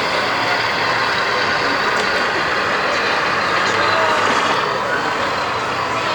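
Steady mechanical running noise of a 1:16 scale 3D-printed FCM F1 RC model tank on a test run, from its Heng Long 6.0 drive and Mato 5:1 gearboxes.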